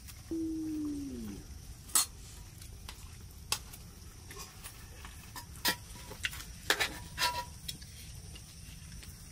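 Spoons clinking and scraping against metal plates during a meal, in scattered sharp clicks, the loudest about two seconds in and a quick cluster a little past the middle. Near the start, a single call about a second long falls in pitch.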